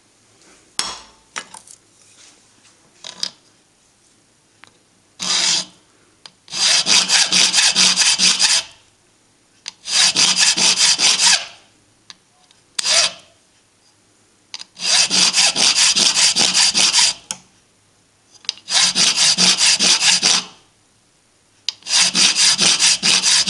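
Flat hand file rasping back and forth across the cracked edge of a cast alloy cylinder-head plate clamped in a vise, dressing the damaged corner. It comes in about five runs of quick strokes, each a second or two long with short pauses between, after a few light clicks of handling near the start.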